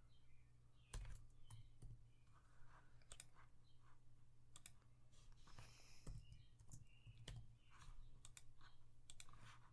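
Quiet, irregular computer mouse and keyboard clicks, a few at a time with short gaps.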